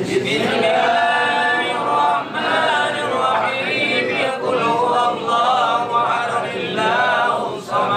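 A group of men chanting Islamic remembrance prayers together in a melodic unison, with no instruments. This is the samadiyah (tahlilan) recitation for the dead. There are brief pauses for breath at the start and near the end.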